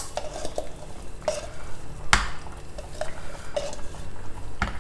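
Wooden spatula scraping and knocking against a clear plastic mixer-grinder jar as thick ground masala paste is pushed out into a soapstone pot. There are about half a dozen short knocks, the loudest about two seconds in.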